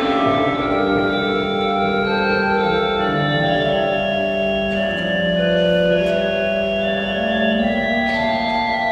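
Mutin Cavaillé-Coll pipe organ playing a Baroque noël in three-part texture: several sustained voices moving against one another over a held lower line, heard in a reverberant church nave.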